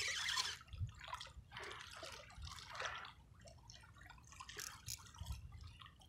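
Shallow water lapping and dribbling at the shoreline, faint and irregular, with a few low thumps of wind on the microphone.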